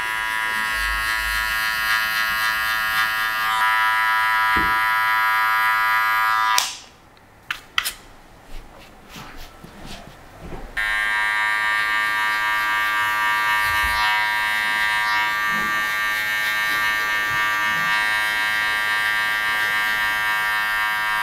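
Cordless hair clipper running with a steady motor hum as it cuts a fade. It is switched off about six and a half seconds in, a few light clicks follow, and it is switched back on about four seconds later.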